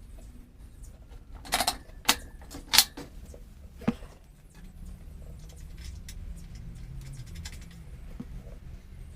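Hand tools and metal parts clinking and knocking during work on a motorcycle's front wheel: four sharp clicks, one about every half second to a second, then faint light rattling.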